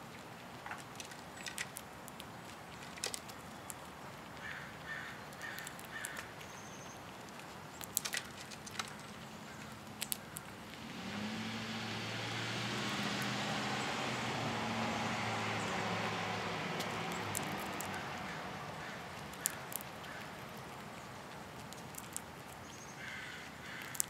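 Scattered clicks and rustles of a squirrel moving among and handling sunflower seeds close to the microphone, with a short run of bird calls around five seconds in. About eleven seconds in, a low engine hum from a passing vehicle swells, holds for several seconds and fades; it is the loudest sound.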